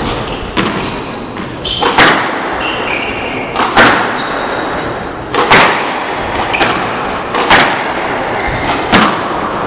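A squash rally: the ball is struck hard by rackets and smacks off the court walls, sharp impacts about once a second, with brief high squeaks of court shoes on the wooden floor between shots.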